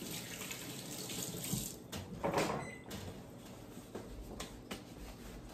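Kitchen sink tap running while hands are washed under it. About two seconds in there is a brief louder splash and the running water stops, followed by a few light knocks.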